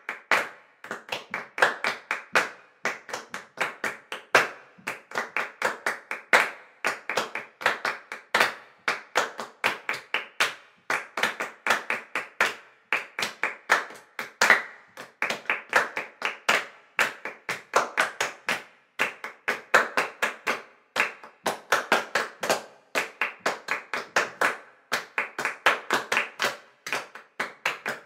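Rapid, uneven claps and taps in dense runs of many strokes with short gaps between them.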